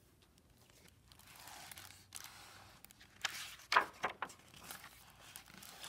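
A hardcover picture book in a plastic library jacket being opened and its pages turned by hand: a soft sliding rustle about a second in, then a few sharp flaps and taps of the cover and pages near the middle.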